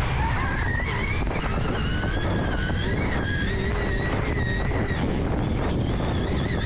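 Stark Varg electric dirt bike's motor whining under hard acceleration, its pitch climbing in the first second and then rising and falling as the throttle is worked, over steady wind rush on the helmet microphone.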